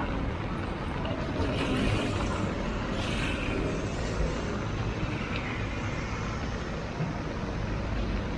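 Road traffic in a heavy downpour: a steady low rumble of passing vehicles. Tyres hiss on the wet road a couple of times, early and about three seconds in.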